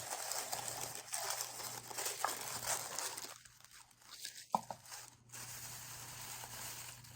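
Paper packaging rustling and crinkling as a gift box is opened by hand, dense for the first few seconds and then softer, with one sharp click about halfway through.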